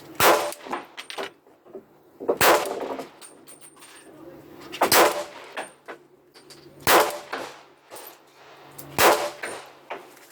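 Glock 43 subcompact pistol in 9x21 fired five times, single shots about two seconds apart, each with a short ringing tail. These are the first test shots from the gun.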